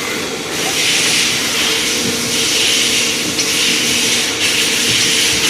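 Benzinger TNI-B6 CNC lathe running: a steady machine hum under a loud hiss that swells and fades repeatedly.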